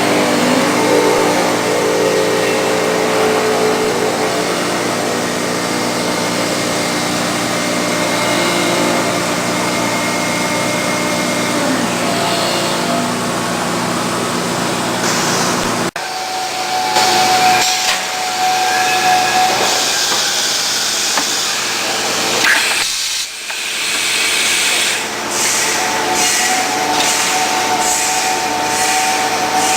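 CNC router working centre running: a steady hiss with several steady whining tones from the spindle and machine, breaking off abruptly about halfway through and resuming with a slightly different pitch pattern.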